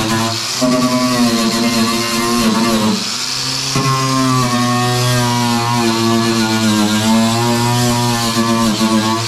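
Electric power tool motor running under load, its whine sagging in pitch several times as the tool bogs down and picking back up.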